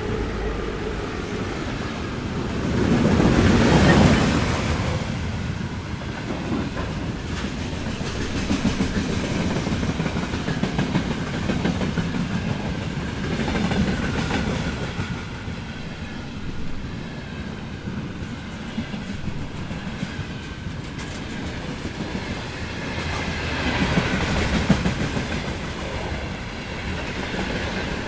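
Freight train rolling past: a steady rumble of wagons with a rhythmic clickety-clack of wheels over the rail joints. It swells loudest about four seconds in and again more softly near the end.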